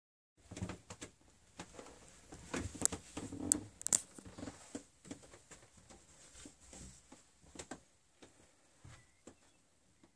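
Irregular knocks, clicks and soft thuds of someone moving about inside a narrowboat cabin, with handling noise. The sounds are busiest between about two and a half and four seconds in, where a few sharp clicks are the loudest, then thin out.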